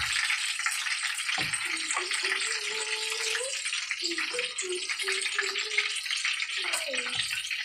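Egg rolls frying in hot oil in a skillet, a steady crackling sizzle. A fork turning them knocks dully against the pan a couple of times.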